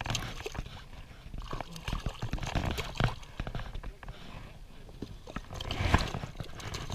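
A small hooked Pacific bonefish thrashing and splashing at the water's surface in irregular splashes, with the loudest splash about six seconds in as it is grabbed and lifted from the water.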